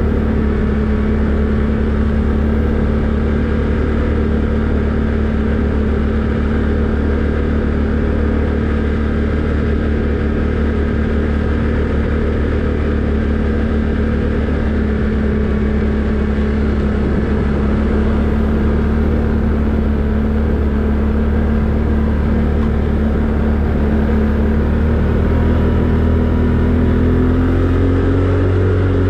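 ATV engine running steadily while riding, its pitch rising a little near the end as it picks up speed.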